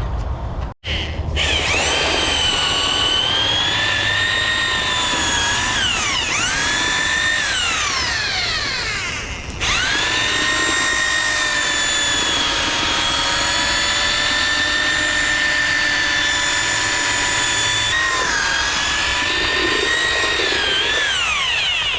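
Electric drill stirring a bucket of concrete mix, its motor whining steadily. Its pitch sags and swings a few times as it is loaded, and it stops briefly about halfway before running on.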